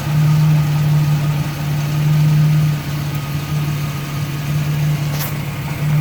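2001 Ford Ranger's 4.0-litre V6 idling in neutral with the clutch pedal held down, a steady low running sound that swells and eases every second or so. Holding the clutch stops the transmission's gear-lash rattle, which appears in neutral with the clutch out once the fluid warms and thins. A faint click comes near the end.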